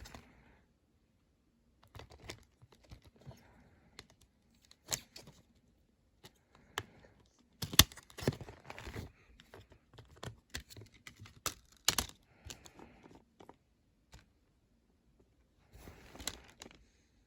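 Plastic packaging on a Blu-ray set being torn open and crinkled in bursts, with sharp clicks and snaps of plastic being handled; the busiest tearing comes about midway.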